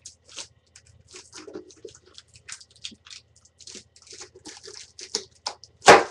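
Plastic shrink wrap crinkling and tearing on a metal trading-card tin, with small scratches and clicks, then one loud sharp bang near the end as the tin is opened, which the opener calls kind of loud.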